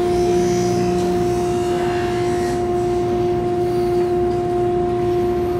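Ice rink ambience during a hockey game: a loud steady two-note hum over a low wash of arena noise, with faint scrapes of skates and sticks on the ice.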